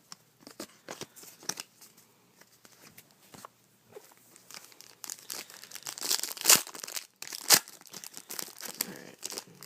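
A 2013 Prestige football trading-card pack wrapper being handled and torn open: soft rustles and clicks at first, then louder crinkling with two sharp rips about six and a half and seven and a half seconds in.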